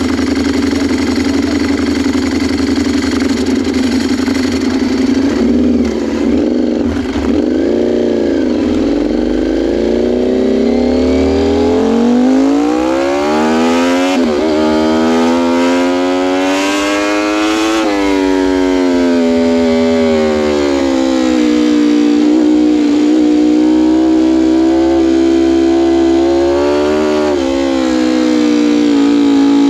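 Sport motorcycle engine under way with the throttle worked: the revs climb, drop sharply about fourteen seconds in, climb again, then fall away to a steady cruise, with a short rise in revs near the end.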